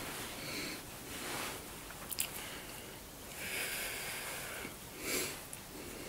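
A man breathing audibly through his nose close to the microphone, several slow breaths, with a couple of faint clicks about two seconds in.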